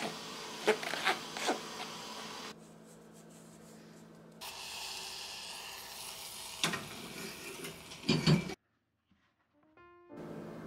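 A wooden spoon scraping and tapping against a stainless steel mesh sieve as flour is pushed through, three short strokes. Then liquid sizzling in a small enamel pan on a gas burner, with a couple of knocks, and soft piano music comes in near the end.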